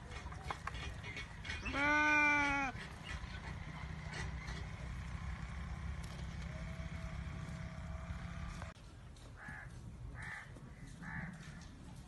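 A goat bleats once, a single call about a second long. Under it runs a steady low background hum that cuts off suddenly about three-quarters of the way through.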